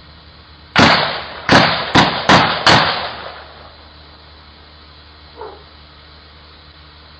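Five gunshots within about two seconds, the later shots coming faster, each ringing out briefly, heard through a doorbell camera's microphone over its steady hiss.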